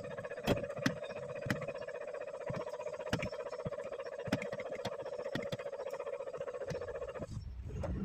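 BMW X3 diesel engine being cranked by its starter motor: a steady whirring with irregular clicks that cuts off abruptly about seven seconds in, followed by a brief low rumble. The engine fails to keep running, later traced to no diesel reaching it.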